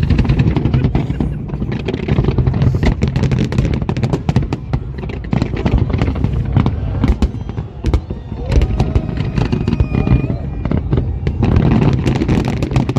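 Fireworks display: a dense run of rapid bangs and crackles, easing a little about two-thirds of the way through before thickening again near the end.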